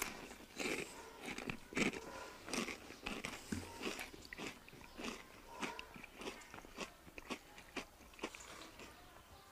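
A person slurping and chewing instant noodles eaten fast by hand, a quick run of short, irregular slurps and wet mouth sounds.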